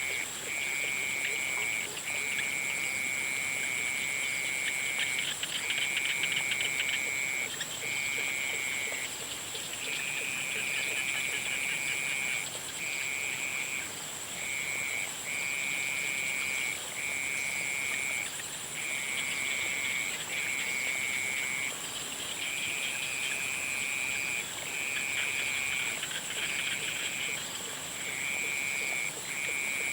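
Evening chorus of frogs: long, high trills of one to three seconds each follow one another with short breaks, over a dense background of many smaller calls. A steady, very high-pitched whine runs underneath.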